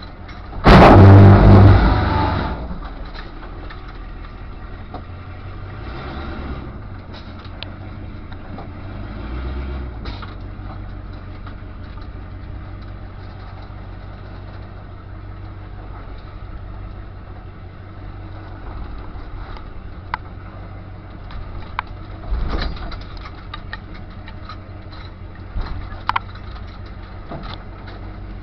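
A loud crunch about a second in, lasting a second or two: the 1979 Jeep Cherokee's rear quarter panel hitting rocks. Afterwards the Jeep's engine runs steadily, with a few short knocks and rattles now and then.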